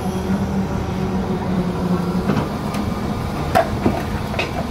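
Construction machinery running steadily at a concrete pour, the hum of the concrete mixer and bucket-hoist machinery, its tone dropping slightly about halfway through. A few sharp knocks come near the end.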